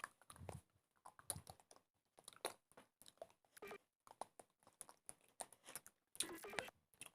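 A person making faint mouth sounds: irregular clicks and crackles with a few short voiced noises, the longest one near the end.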